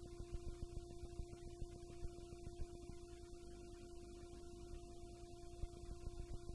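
Steady electrical hum, one tone with a fainter one above it, over a low crackling rumble: background noise of the recording with no programme sound.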